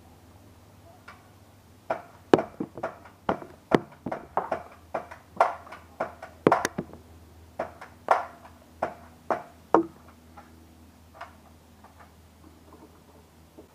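Foam darts fired from a modified foam-dart pistol, striking and bouncing near the camera in a rapid run of about twenty sharp knocks and clatters, then a few faint clicks near the end.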